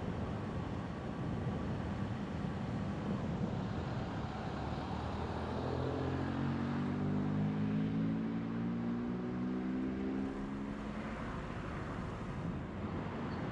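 Car driving: steady tyre and road noise, with an engine note rising in pitch from about the middle as a vehicle accelerates, then fading a few seconds before the end.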